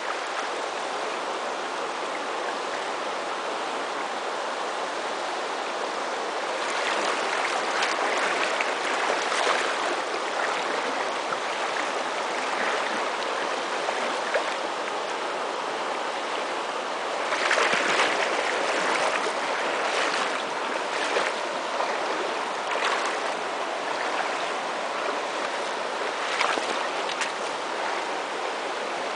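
Shallow, fast river running over a stony riffle: a steady rush of water that swells louder twice for a few seconds.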